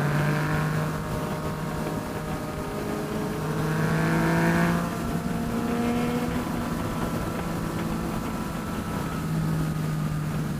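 Yamaha FZ-09's three-cylinder engine with an M4 exhaust, heard from the rider's seat under way: its pitch climbs steadily, drops about five seconds in, then climbs again.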